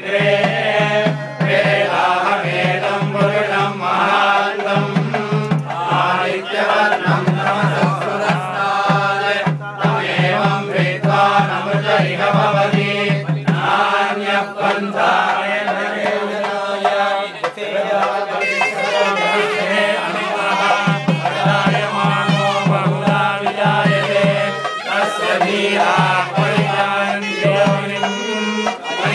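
A group of men chanting mantras in unison, a steady rhythmic recitation of many voices.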